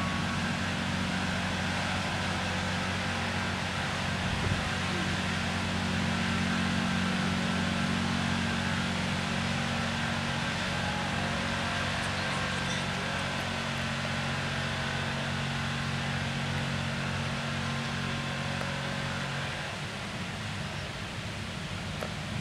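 Fire engine running steadily with a low hum, under a constant hiss. The engine hum drops away about 20 seconds in.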